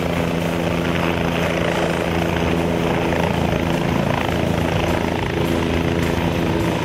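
Helicopter running steadily: a continuous drone of several held tones under a rushing noise.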